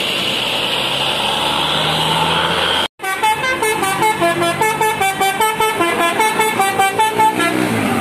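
A bus's telolet horn, a multi-tone Basuri-type musical horn, playing a fast jingly tune of short notes, several tones sounding together, about five notes a second, stopping shortly before the end. Before it, for about three seconds, a coach's engine is heard running as it pulls past, up to an abrupt cut.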